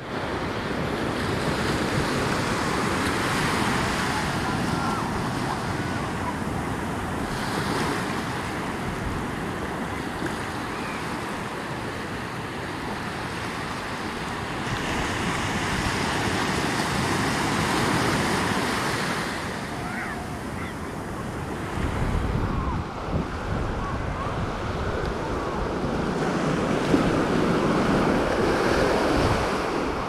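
Ocean surf breaking and washing up a sandy beach, rising and easing in swells every few seconds, with wind buffeting the microphone, most strongly a little past the middle.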